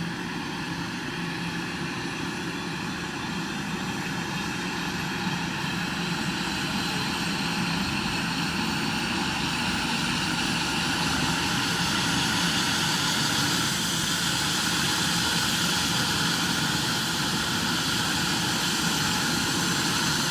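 Air ambulance helicopter's turbine engines starting up: a steady whine with several tones that slowly rise in pitch and grow louder as the engines spool up.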